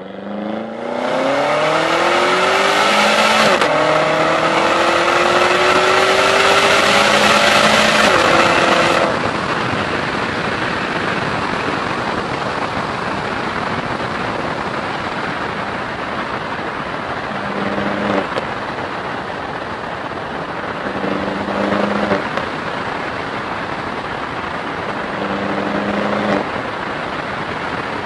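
BMW E70 X5M's twin-turbo V8 through a Megan Racing Supremo exhaust, accelerating hard from a standstill: the pitch climbs, drops at an upshift about three and a half seconds in, and climbs again until about nine seconds in. The engine then settles to a cruise under steady wind and road noise, with the exhaust note swelling briefly three times in the second half.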